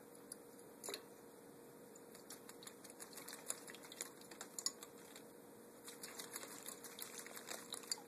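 Kakariki parakeet bathing in a water dish: a faint patter of small splashes and flicks of water. It comes in clusters from about two seconds in and again near the end.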